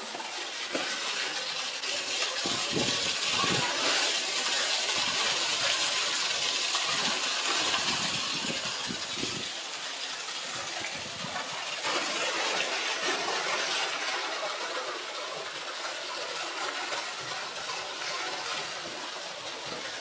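Water jet of an artificial waterfall pouring into a pool: a steady rushing hiss, louder for the first half and easing after about ten seconds.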